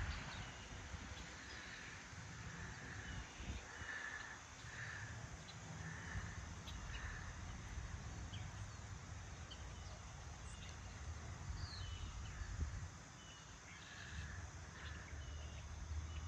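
Crows cawing: a run of about five harsh caws roughly a second apart from about four seconds in, and two more near the end. Short high chirps of other birds and a low rumble sit underneath.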